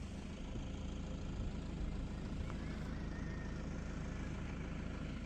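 A vehicle engine running steadily with a low rumble and road noise.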